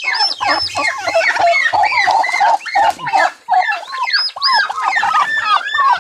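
Newly hatched turkey poults and brooding turkey hens calling in the nest: a dense, continuous run of short, overlapping arched peeps and clucks.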